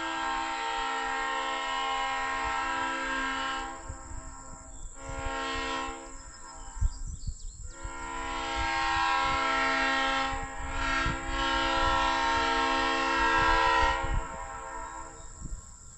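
Leslie SU3L three-chime air horn (25, 31 and 44 bells) blowing its chord in several blasts: one ending about four seconds in, a short one around five seconds, a long one of about six seconds from about eight seconds in, and another starting near the end.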